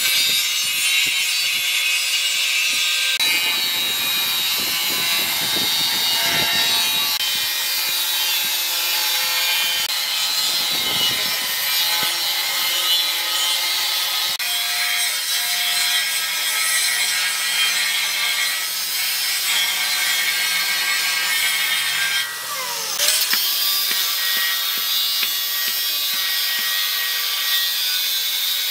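Angle grinder with a thin cut-off wheel cutting through a steel tractor disc: a loud, steady, high-pitched grinding screech as the wheel bites into the metal.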